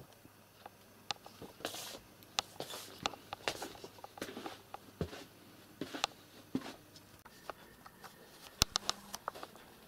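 Quiet, irregular clicks, taps and soft rustles of someone walking through a room with a handheld camera: footsteps and camera handling noise, with no steady sound.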